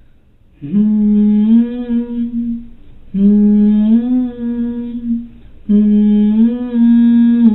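A man humming a slow melody in three long held phrases, each lifting a little in pitch partway through, after a brief quiet start.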